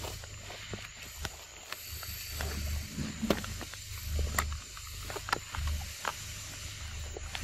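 Scattered sharp crackles and rustles over a steady high hiss, with repeated patches of low rumble.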